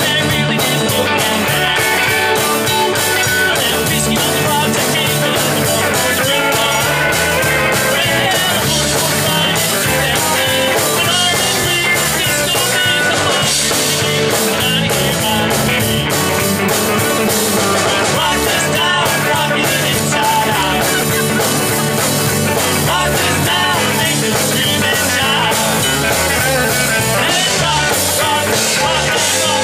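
Amateur rock band playing live, loud and steady throughout: electric guitars and drum kit, with a man singing lead into a microphone.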